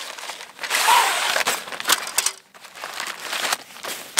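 Plastic-bagged aluminium tabletop sections and steel legs being pulled out of a fabric pouch: a long rustle as they slide out, then plastic bags crinkling and crackling as they are handled.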